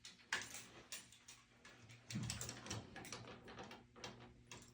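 Faint scattered clicks and light knocks over a low hum, about a dozen short ticks, with a duller knock about two seconds in.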